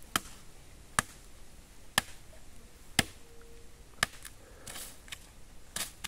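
Short knife blade chopping into the tough base of a bamboo shoot: five sharp blows about a second apart, then quicker, lighter cuts. The shoot's base is hard to cut, which she takes to mean it is dry.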